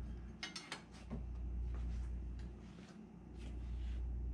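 A few light metallic clinks as thin aluminium ribs are handled and set down on a wooden workbench, a quick cluster about half a second in and a few fainter ones after, over a steady low background hum.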